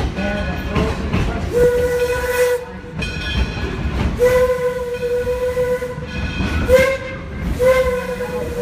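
Steam whistle of the Detroit & Lima Northern #7 steam locomotive blowing a single steady note in two long blasts, a short one and a final long one: the grade-crossing signal. Underneath runs the rumble and clatter of the moving train.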